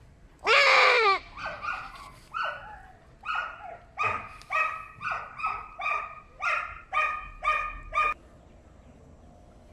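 A male goat crying out in pain while being castrated: one long, loud scream, then a run of about a dozen short cries that quicken to about two a second and stop about eight seconds in.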